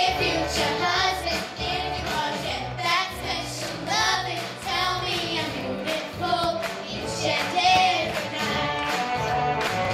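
A group of young girls singing a pop song together into handheld microphones over a backing track with a steady beat.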